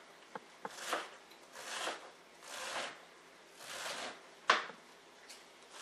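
Large kitchen knife slicing through a head of lettuce on a cutting board: a run of crisp, swishing cuts about a second apart, with one sharp knock of the blade on the board about four and a half seconds in.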